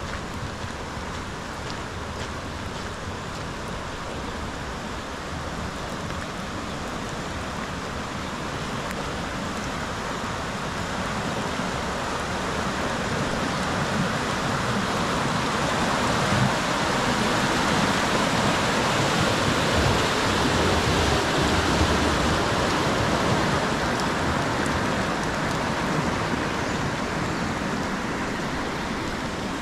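Fast-flowing floodwater rushing, a steady wash of noise that grows louder as it comes close, at its loudest a little past halfway, then eases slightly near the end.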